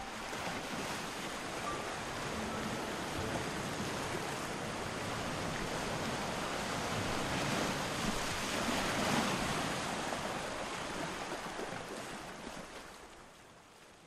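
Steady rushing noise, like wind or surf, swelling a little past the middle and fading out near the end.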